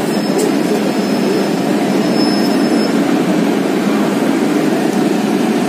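Cabin noise inside a city bus under way: the bus's engine and running gear give a steady, loud drone. A faint high whine sounds over it for the first few seconds.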